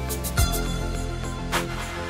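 Background music: sustained notes with drum hits.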